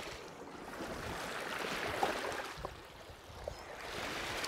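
Small waves lapping at the shoreline and washing over horseshoe crab shells, the wash swelling and ebbing, with a few faint clicks.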